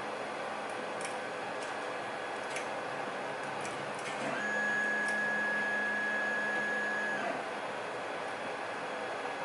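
Scattered light clicks of lock picks working the pins of a pin-tumbler lock, over a steady whirring hiss. About four seconds in, a steady high tone begins and holds for about three seconds, then stops.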